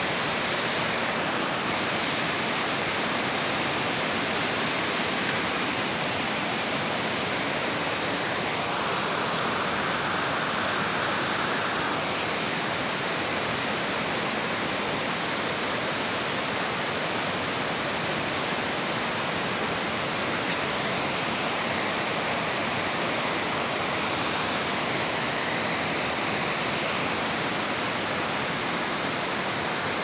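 Fast mountain river rushing over rocks: a steady, even rush of water.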